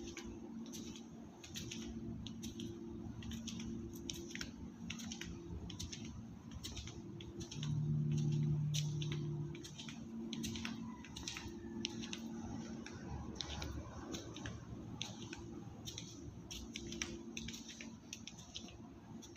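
Footsteps on a concrete workshop floor, about two a second, over a low steady machine hum that swells for a couple of seconds near the middle.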